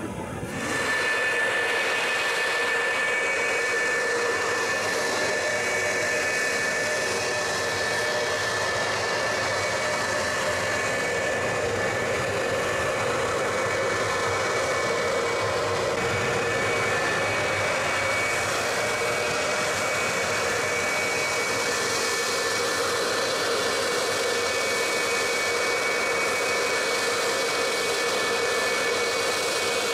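Fighter jet engine running at a steady speed: an even rush with a steady high whine, starting suddenly about half a second in.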